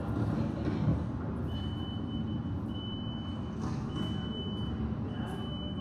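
Light-rail train's door-closing warning, a steady high beep repeating about once every second and a quarter, over the low rumble of the train standing at the platform. A single knock about a second in.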